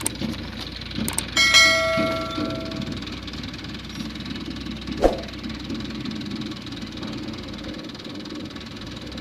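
A tractor's diesel engine running steadily. About a second and a half in, after a few small clicks, a bell dings once and rings away over a second or so, most likely the sound effect of a subscribe-and-bell animation. A single sharp knock comes about five seconds in.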